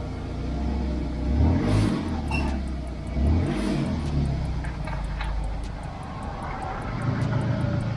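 Toyota Camry 2.4's four-cylinder engine running at low speed and revved lightly twice as the car is driven slowly forward. From about two and a half seconds in, a faint fast ticking runs at about five a second.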